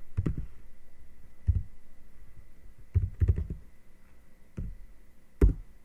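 Computer keyboard being typed on: scattered, uneven keystrokes, a quick run of several about three seconds in, and a single louder key press near the end.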